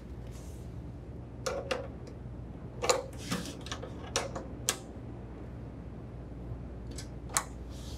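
Scattered light clicks and taps of a wrench and fittings, about nine in all and irregularly spaced, as the main water line is fastened to the refrigerator's water inlet valve, over a steady low hum.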